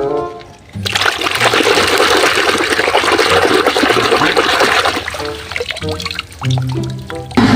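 Rushing water for about four seconds in a steady, even rush, then a few short musical notes near the end.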